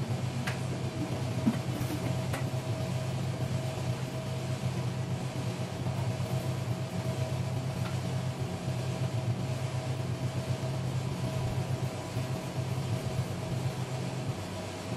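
Steady low machine hum with a faint constant higher tone over it, unchanging throughout; a couple of light taps in the first few seconds.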